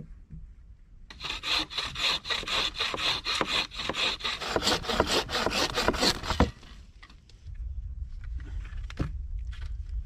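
A hand saw cutting through wood in quick, even back-and-forth strokes. It starts about a second in and stops abruptly after about five seconds of sawing.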